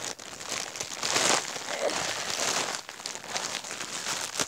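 Packaging crinkling and rustling as it is handled and pulled open, loudest about a second in.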